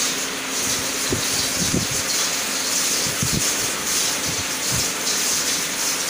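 Steady hiss from a continuous mesh-belt heat-treating furnace line as red-hot concrete nails pour from the furnace mouth into the quench, with a faint hum and a few faint low knocks.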